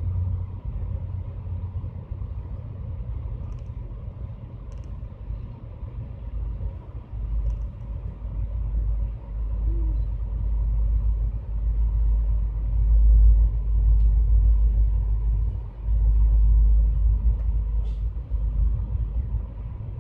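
Steady low rumble of a passenger train running on the track, heard from inside a car. It grows louder for long stretches in the second half.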